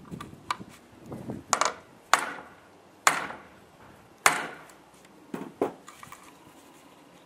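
Hammer striking a steel snap-setting punch to set a snap fastener through jacket fabric on a plywood board: four sharp metallic blows with a short ring, roughly a second apart, and a few lighter taps before and after.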